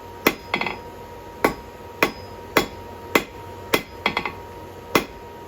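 Blacksmith's hammer striking hot steel on an anvil, drawing out the fire poker's stem into a thinner taper. Sharp, ringing blows come at about two a second, a few of them followed by quick light bounce taps.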